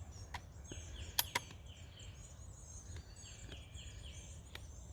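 Songbirds calling: a few short, high, downward-sliding chirps in quick groups, with fainter twittering higher up. Beneath them there is a steady low outdoor rumble and a few sharp clicks, the loudest a little over a second in.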